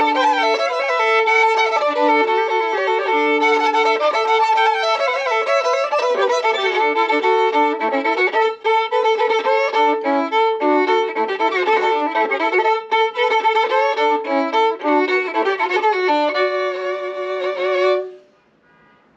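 Solo fiddle playing a fast bluegrass tune, mixing held notes with quick runs and often sounding two strings at once. The playing stops about a second before the end.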